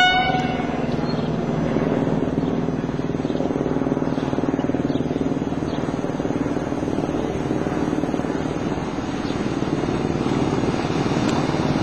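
Stadler GTW diesel multiple unit approaching along the track, its diesel engine running with a steady drone. A short horn note sounds at the very start.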